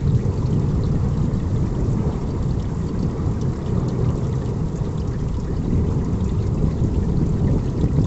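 Rain falling during a thunderstorm, with a steady deep rumble under the patter of drops.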